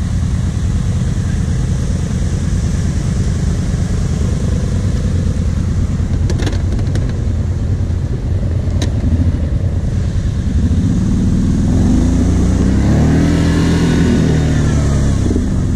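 Kawasaki KVF 750 Brute Force quad's V-twin engine running, then revved harder from about eleven seconds in, its pitch rising and falling as it strains to tow a stuck quad on a rope. A few sharp clicks come around six and nine seconds in.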